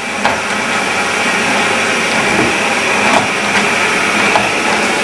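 Vacuum cleaner running steadily, its motor just reaching full speed in the first moment, with a few light clicks over the whirring.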